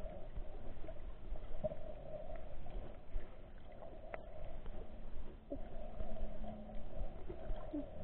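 Muffled underwater sound picked up by a camera in a waterproof case: a steady hum with low water movement and a few faint ticks, and a sharp click about four seconds in.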